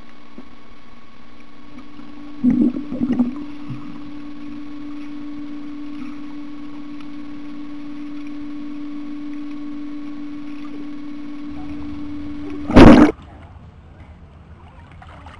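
Muffled underwater sound in a swimming pool: a steady low hum, with a couple of short bubbling bursts about two and a half seconds in. Near the end a loud burst of noise lasting about a third of a second, after which the hum is gone and a quieter open-air background follows.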